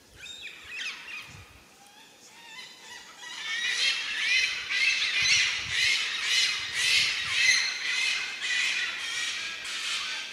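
A flock of birds squawking. A few scattered calls come first, one of them sliding down in pitch near the start. From about three seconds in, a loud, dense, overlapping chatter sets in and pulses about twice a second.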